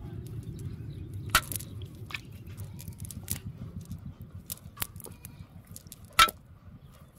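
Fine nylon fishing net handled and pulled through the hands, crackling and rustling with scattered sharp clicks and two louder snaps, one about a second and a half in and one near the end, over a low steady rumble that fades about halfway through.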